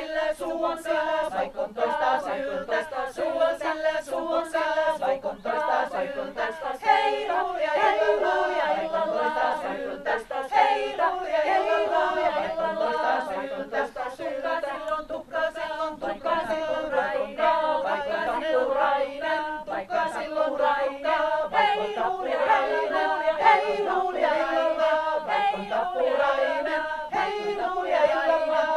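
A small women's folk-song ensemble singing a Finnish folk song a cappella, several voices together with no instruments.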